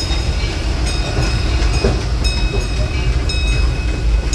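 Railroad passenger coach rolling along the track: a steady low rumble with sharp clicks, often in pairs, as the wheels pass over rail joints, each followed by a thin metallic ring.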